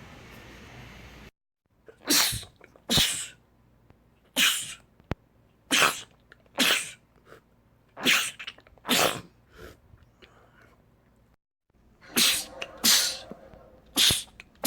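A man sneezing about ten times, the sneezes mostly coming in quick pairs, with abrupt cuts to silence between short clips.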